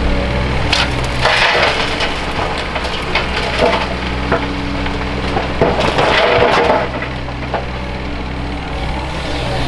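Dirt and rocks from a JCB JS210 excavator's bucket crashing and rattling into a Scania R560 dump truck's tipper body, in two bursts about a second in and about six seconds in, with a few single knocks between. A diesel engine runs steadily underneath.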